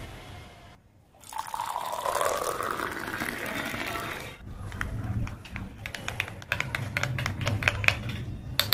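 Hot milk poured into a small jug, the pouring note rising as the jug fills. Then a spoon stirs it, clinking rapidly and unevenly against the jug's sides.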